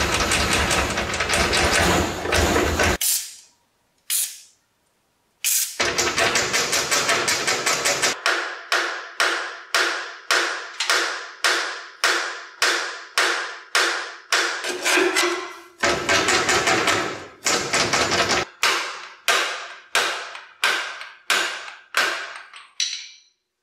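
Hammer blows on the steel front suspension of a 1956 Chevrolet, each strike ringing; they come about two a second for most of the stretch, broken by passages of fast, dense rattling and a short pause early on.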